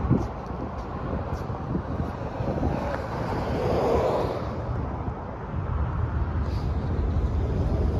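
Wind buffeting the microphone over the sound of road traffic going by, with one vehicle swelling louder and fading about four seconds in.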